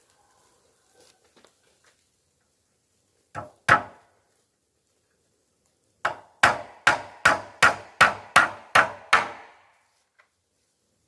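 Hammer blows on wood: two strikes, then after a pause a steady run of about nine blows, roughly three a second.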